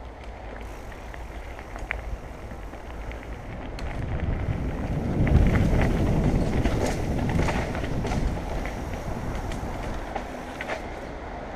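Mountain bike rolling fast down a dirt trail: rumbling tyre and frame noise with scattered sharp knocks and rattles from the bumps. It grows loudest about five seconds in, then eases off.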